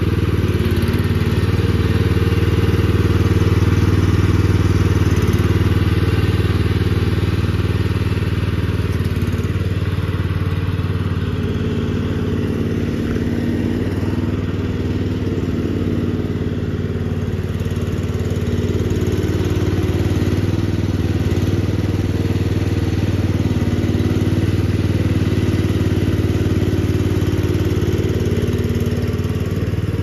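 13.5 horsepower Briggs & Stratton engine of a mini skid steer loader running steadily as the loader drives about, its pitch shifting only slightly.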